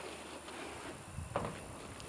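Faint shuffling and handling of a load in a pickup truck's bed, with one dull knock a little over a second in.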